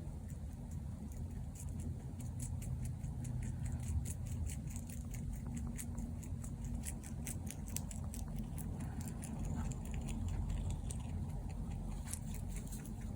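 A Mini Rex rabbit chewing: many quick, light crunching clicks over a steady low hum.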